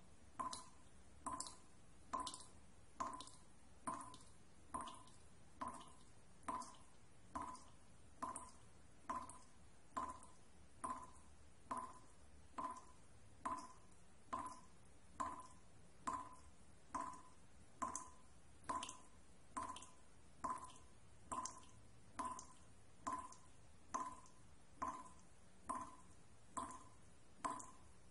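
Steady, even ticking as the soundtrack, a little more than one tick a second. Each tick is a short, hollow, ringing note that dies away quickly.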